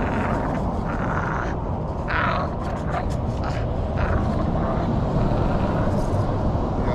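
Bulldog tugging and hanging on a spring pole rope, with short, noisy breaths or growls through the rope, over a steady low rumble. A quick run of light clicks comes about three seconds in.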